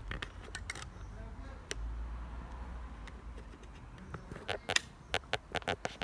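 A low rumble of wind on the microphone, with a few scattered clicks. Near the end comes a quick run of sharp clicks and taps as the handheld camera is moved closer to the wheel.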